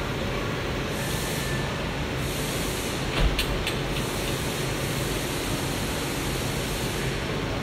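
Large-format flatbed laser cutting machine running while its head marks fabric: a steady rushing noise with a low hum, and an airy hiss that swells and fades a few times. There is a single brief knock about three seconds in.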